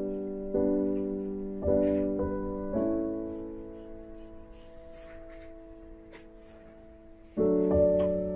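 Background piano music: chords struck about once a second, then one chord left to ring and slowly fade for several seconds before a loud new chord near the end.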